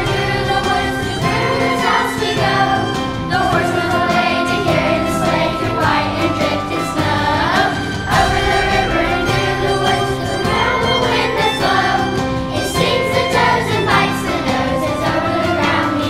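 Children's choir singing a Christmas song together, with instrumental accompaniment beneath the voices.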